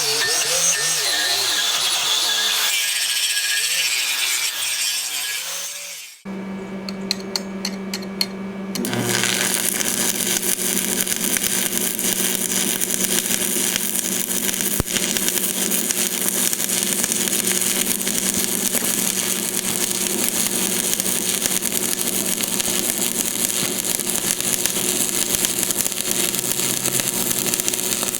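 An angle grinder grinding steel on an anvil for the first several seconds, then a cut to a brief electric hum with a few clicks. From about nine seconds in, a steady crackling hiss over a hum: a stick-welding arc from a Lincoln tombstone AC welder laying 7018 rod onto the anvil's edge.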